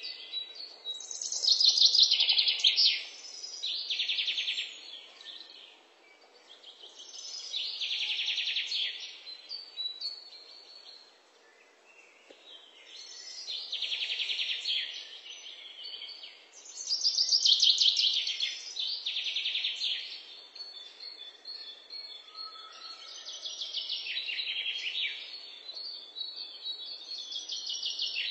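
Shrill, bird-like chirping trills in bursts of one to two seconds, repeating every few seconds, over a faint steady hiss.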